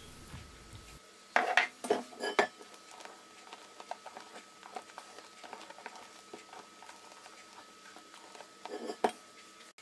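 Silicone spatula knocking and scraping against a stainless steel mixing bowl while folding egg yolks into whipped egg whites. A cluster of sharp knocks comes about a second and a half in, faint scraping follows, and a couple more knocks come near the end.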